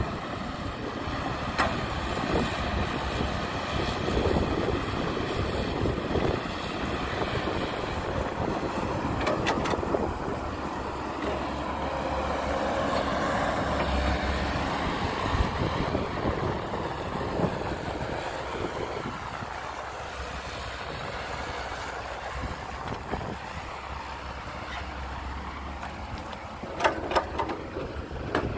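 Caterpillar excavator's diesel engine running under working load as it digs and swings, its pitch rising and falling with the throttle. Near the end come a few sharp knocks as a bucketful of soil and clods drops into the steel bed of a dump truck.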